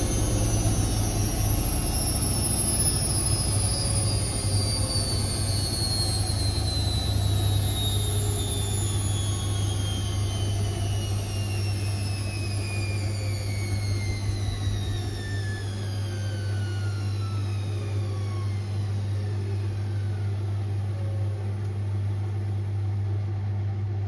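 Indesit IWC6165 washing machine's drum spinning down: the motor's whine falls steadily in pitch over a steady low hum as the spin slows.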